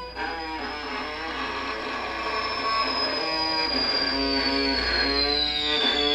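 Free-improvised string ensemble music: short plucked and bowed notes from violin, viola and cello, growing busier after about three seconds, over a single high thin tone that slides slowly downward.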